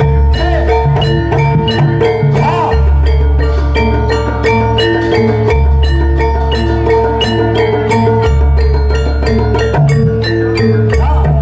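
Jaranan dance accompaniment music: hand drums and tuned metal percussion play repeated rhythmic notes over long, deep bass tones.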